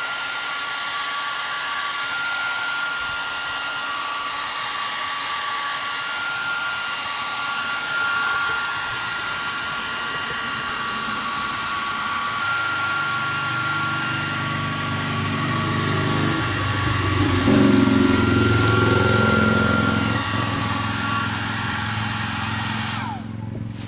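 Handheld hair dryer blowing steadily with a high motor whine, switched off near the end so the whine slides down and stops. A lower rumble swells and fades around the middle to two-thirds of the way through.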